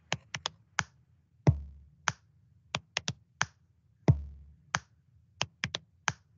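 Body-percussion rhythm in a repeating stomp, clap, three quick pats, clap pattern. A deep stomp thud opens each bar, about every two and a half seconds.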